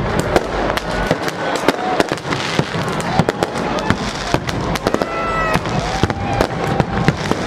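New Year's Eve fireworks and firecrackers going off in rapid, overlapping succession: many sharp bangs and crackles without a break, with a few whistles about five seconds in.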